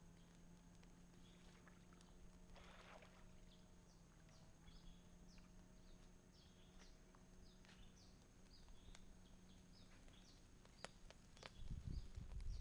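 Near silence: quiet outdoor ambience with faint, short, high chirps repeating about twice a second, and a low steady hum. A few low bumps come near the end.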